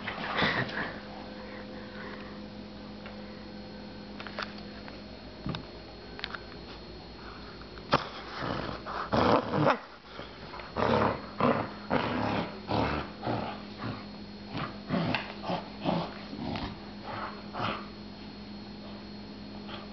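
German shepherd puppy play-biting and chewing a socked foot, making short, irregular snuffling and growling noises. They are sparse at first, then come thick and fast from about eight seconds in.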